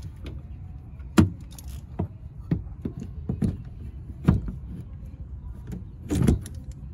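Irregular metallic clicks and clinks as a long torque wrench and its socket are repositioned onto a fitting on a fuel pump flange. The sharpest clink comes about a second in, and a short cluster of knocks comes near the end.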